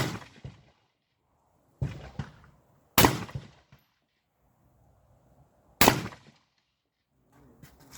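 Carbine shots fired singly and unevenly spaced: four loud cracks, at the start, about two seconds in, at three seconds and near six seconds, each with a short echoing tail.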